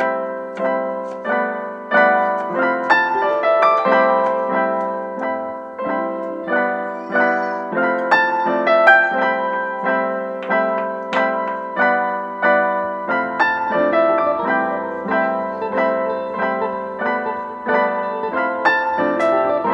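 Background piano music: notes and chords struck at a steady pace, each note dying away after it is struck.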